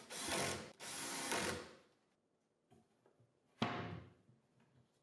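Cordless drill driving screws into a cabinet door's concealed hinge: two short runs of about a second each. About three and a half seconds in comes a single sudden knock that dies away quickly.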